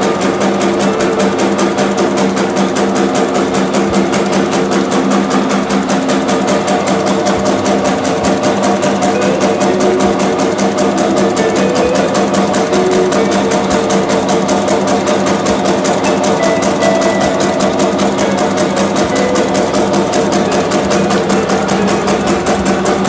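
Meatball-forming machine running steadily: a motor hum under a rapid, even mechanical clatter.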